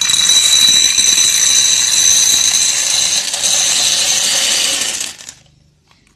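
Jelly beans pouring out of a jar onto a plate: a dense, steady rattling clatter that stops about five seconds in.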